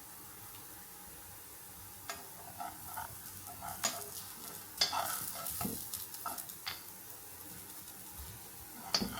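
Paneer and sweet potato tikkis shallow-frying in a pan with a steady faint sizzle. From about two seconds in, spoons click and scrape against the pan as the patties are turned.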